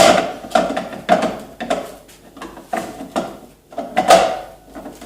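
Hard plastic parts of a Bosch Tassimo T40 coffee machine being handled, taken out and fitted back: a run of sharp clacks and knocks.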